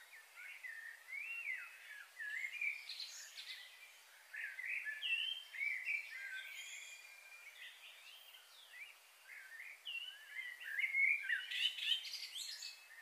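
Songbirds singing: quick chirping, warbling phrases that glide up and down, coming in bursts and loudest near the end, over a faint steady background hiss.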